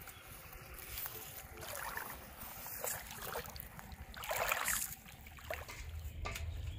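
Shallow water splashing and sloshing in a flooded rice paddy, in uneven bursts, with the loudest splash about four and a half seconds in.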